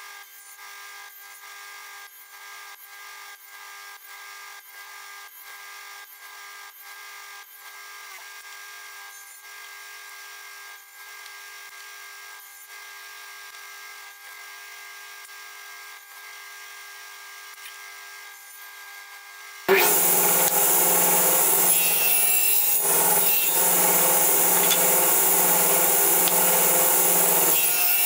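Table saw running loudly, starting abruptly about two-thirds of the way in. Before that, a quiet steady hum with faint ticks about twice a second.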